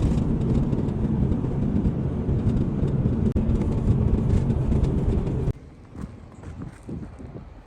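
Steady low rumble of a moving vehicle's road and engine noise. About two-thirds of the way through it cuts off abruptly, leaving a much quieter low rumble with scattered soft thumps.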